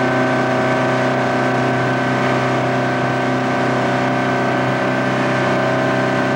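Tow boat's engine running at a steady towing speed: a constant drone with no change in pitch, over a rush of wind and water from the wake.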